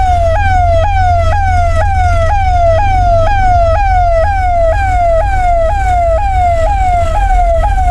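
Electronic siren sounding a fast repeating sweep: each cycle jumps up in pitch and then falls more slowly, a little over two cycles a second, over a steady low rumble.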